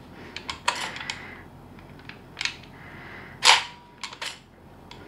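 Clicks and snaps from the upper receiver of a Specna Arms Edge 2.0 M4 airsoft rifle as its spring-loaded part is worked back by hand and let go, springing forward because nothing locks it in the rear position. The sharpest snap, with a brief ring, comes about three and a half seconds in.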